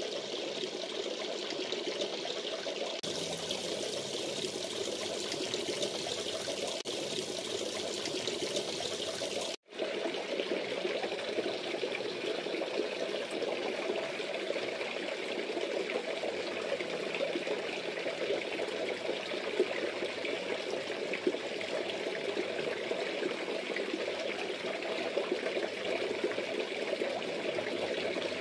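Water splashing and trickling steadily into a fish pond as an even, continuous rush, broken by a momentary gap about ten seconds in.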